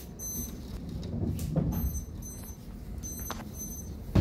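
A lightning detector beeps high and electronic in pairs, about three double beeps. Each pair signals a lightning strike within 15 miles. Under the beeps is steady rain, a low rumble swells about a second and a half in, and a sharp, loud thump comes at the very end.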